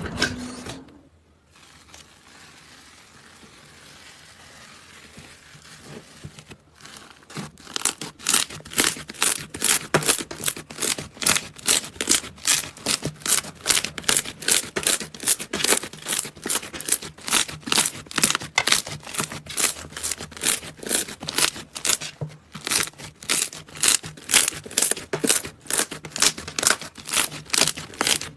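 Slime being pressed and squeezed by hand, giving a long run of sharp crackly pops and clicks at about three a second that starts around seven seconds in, after a few seconds of faint hiss.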